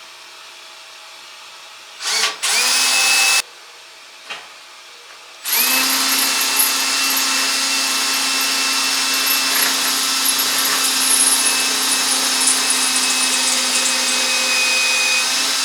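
Electric drill with a pilot bit drilling pilot holes through the enamelled steel lid of a Weber Smokey Mountain smoker. A short run of about a second and a half comes first, then one long steady run of about ten seconds that stops near the end.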